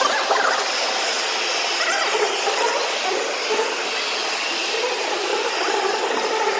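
Street crowd noise: a dense, steady din of many people talking and calling at once.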